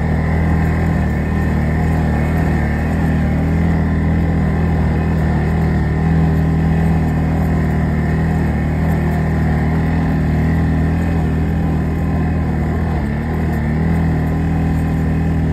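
Snowmobile engine running at a steady cruising speed, a constant drone that holds its pitch.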